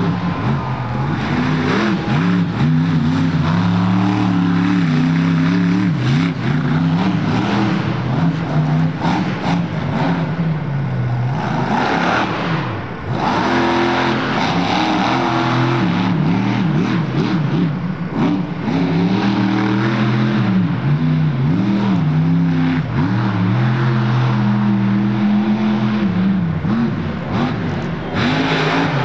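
Monster truck engine revving hard, its pitch climbing and dropping again and again as the throttle is worked, with a short dip in level about twelve seconds in.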